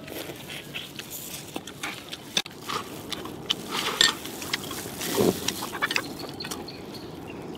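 People eating braised crayfish: shells cracked and peeled by gloved hands, with sucking and chewing at the mouth, in short irregular clicks and bursts.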